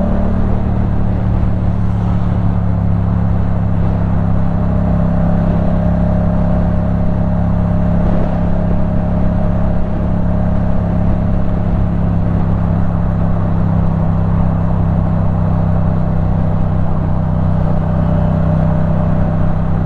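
2015 Yamaha MT-07's 689 cc parallel-twin engine through a Leovince One Evo full-system exhaust, running at a steady, unchanging engine speed.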